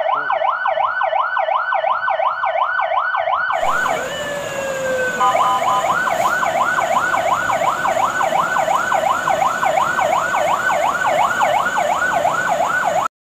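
Fire engine siren sound effect in a fast yelp, about three wails a second. A steady rush of vehicle noise joins it about three and a half seconds in, and a brief falling tone sounds before the yelp resumes. It cuts off suddenly near the end.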